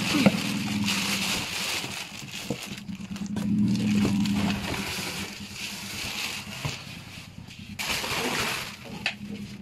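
Plastic bag and cardboard rustling and scraping as a heavy power amplifier is unpacked from its box and styrofoam packing, with a louder stretch of rustling about eight seconds in. A steady low hum runs underneath.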